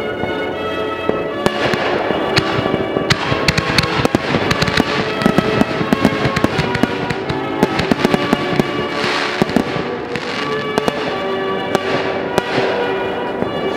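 Aerial fireworks bursting and crackling, with dense pops and crackles thickest in the middle. Music with held tones plays underneath.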